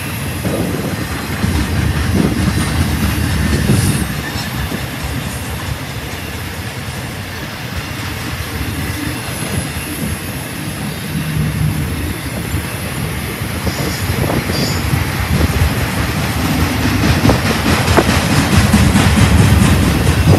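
BNSF intermodal freight train's loaded well cars rolling past close by, a steady rumble with the wheels clattering over the rails. It gets louder over the last few seconds.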